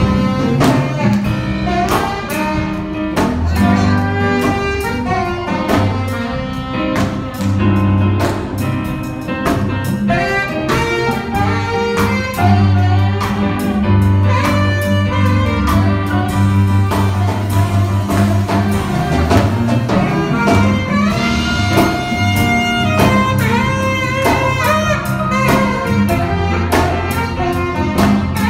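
Saxophone playing a slow melody of held notes over a backing track with a steady beat and bass line.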